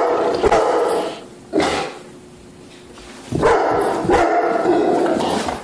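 Large black-and-tan dog barking at a person dressed as Santa Claus: a volley of barks, a single bark, a short pause, then a longer run of barks near the end.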